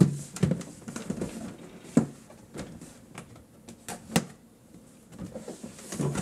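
A cardboard kit box being handled and turned over on a wooden table: scattered knocks, scuffs and rustles, with sharper knocks about two seconds and four seconds in.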